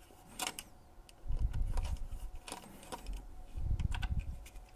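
Screwdriver backing out the screws that hold the hotend to a 3D printer's metal carriage, with the parts handled as they come free: a few small sharp clicks and two stretches of dull rubbing.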